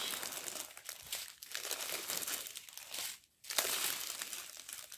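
Strip of small plastic sachets of diamond-painting drills crinkling as it is handled and unfolded, with a short break a little over three seconds in.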